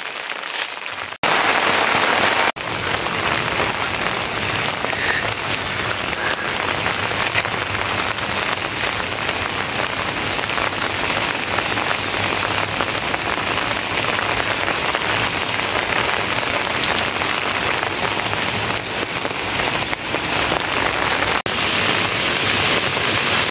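Steady rain falling, a dense even hiss that drops out briefly a few times.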